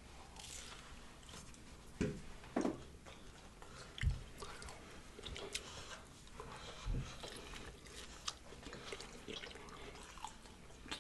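Faint chewing and mouth sounds of someone eating a birria and cheese pupusa, with small wet clicks and a few soft knocks spread through.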